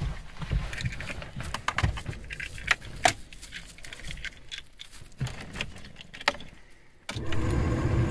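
Car keys jangling and clicking as the key goes into the ignition lock of a VW diesel. About seven seconds in, the ignition is switched on and a steady hum starts as the dashboard warning lights come on for the glow-plug wait.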